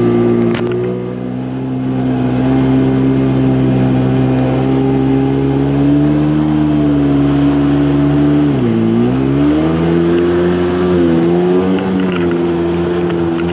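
Yamaha jet ski engine running at speed with a steady drone; about nine seconds in its pitch drops sharply for a moment and then climbs back as the throttle comes on again.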